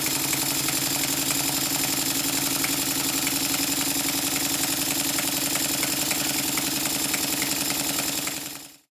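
Stuart triple expansion model steam engine running at high speed on compressed air: a fast, even mechanical beat with a steady hiss of air, fading out near the end.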